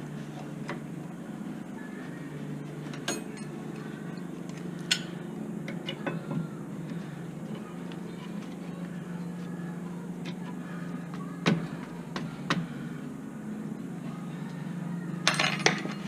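Scattered sharp metallic clinks and taps of hand tools and brake parts being handled during a rear brake pad job, several single knocks and a quick cluster near the end, over a steady low hum.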